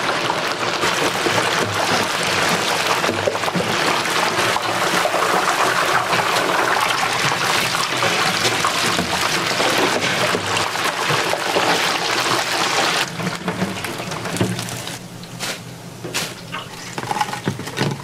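Water rushing steadily for about thirteen seconds, then cutting off, followed by scattered knocks.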